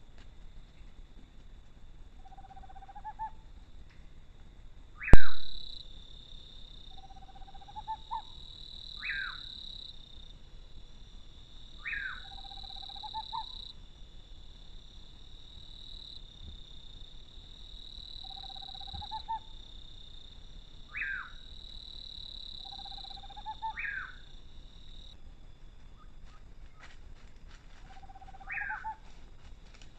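An animal calling at night, each call a lower note followed by a short higher note that falls in pitch, repeated every few seconds. A steady high-pitched trill runs behind it, and a single sharp, loud click comes about five seconds in.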